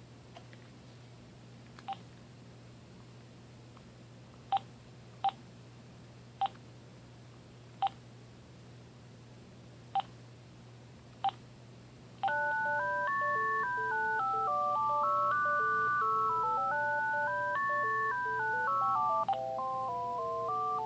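Cordless phone handset: about seven short key beeps a second or two apart as its buttons are pressed, then, from about halfway through, a polyphonic ringtone playing a three-part melody in stepping notes. After another key beep near the end it switches to a different tune.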